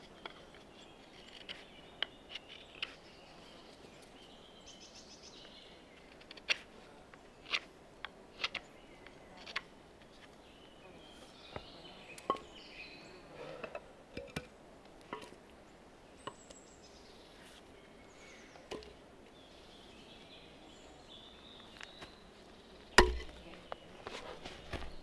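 Irregular sharp knocks and clicks of hand tools working wood, spaced a second or more apart, with one loud knock near the end.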